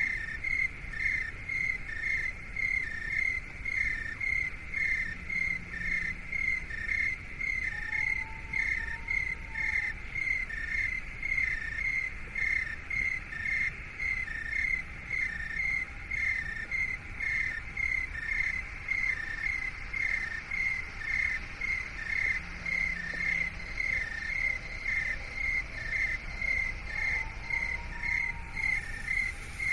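Cricket chirping steadily, about two high chirps a second, over a faint background hiss. A faint rising-and-falling tone comes in twice.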